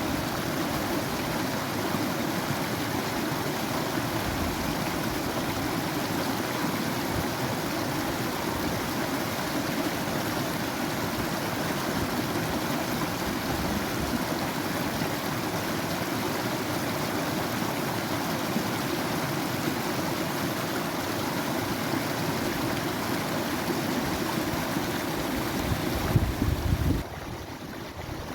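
Running water in a stream, a steady, even rush. Near the end a brief low rumble swells up, then the sound drops quieter.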